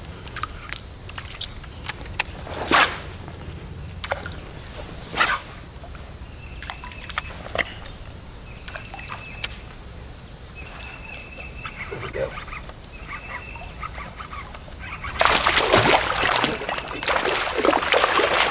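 A steady, high-pitched chorus of insects buzzing, with scattered light clicks and a louder burst of noise about fifteen seconds in.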